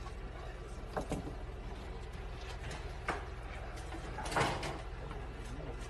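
A steady low hum with a few short knocks, about a second in and three seconds in, and a louder scraping clatter about four and a half seconds in.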